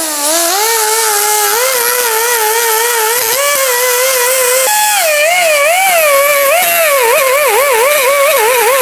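Angled die grinder running under load, grinding the head off a door hinge pin. Its whine wavers up and down as it bites into the metal, over a steady high hiss.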